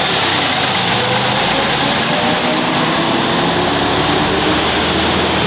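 AEC Routemaster double-decker bus engine pulling away past the kerb, its note rising steadily in the first few seconds as it accelerates, over loud, steady street traffic noise.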